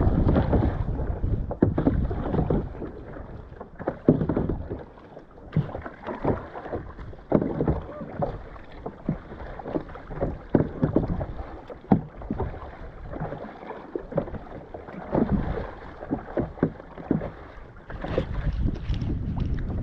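Paddle strokes splashing and water slapping around a stand-up paddleboard, coming irregularly every second or two, with wind buffeting the microphone at the start and again near the end.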